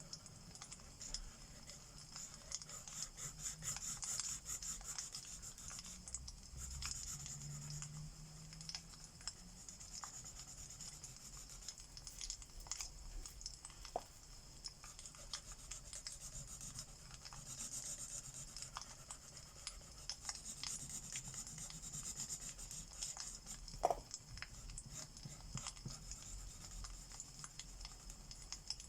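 Alcohol marker tips rubbing back and forth on paper in repeated coloring strokes, over fireplace crackle with scattered small pops, two sharper ones about a third and four-fifths of the way through.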